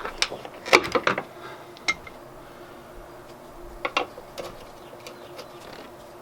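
Scattered clicks and knocks from a liftgate gas strut and its end fittings being handled and turned around: a cluster of sharp knocks about a second in, then a few single clicks, with a faint steady hum under them.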